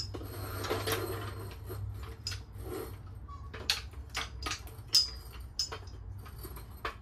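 Scattered sharp metallic clinks and knocks as a floor jack and a pickup's steel rear bumper assembly are worked by hand, over a steady low hum.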